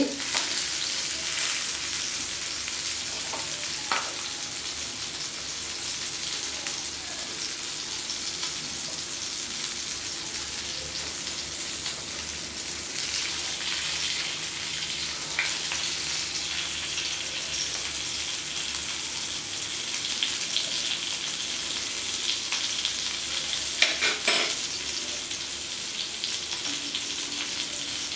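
Semolina-coated sardines sizzling steadily as they shallow-fry in oil in a nonstick pan. A few clicks of a spoon against the pan come as the fish are turned, the loudest about 24 seconds in.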